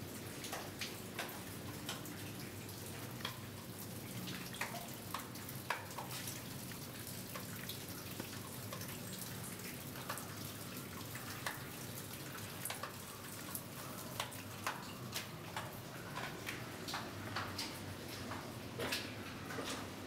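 Water dripping irregularly inside a rock tunnel: sharp single drops, several a second at times, over a steady low background rush.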